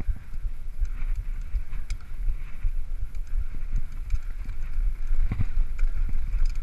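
Mountain bike rolling over a rough dirt track: wind buffeting the microphone as a low rumble, with scattered clicks and knocks from the bike rattling over bumps, one harder knock about five seconds in.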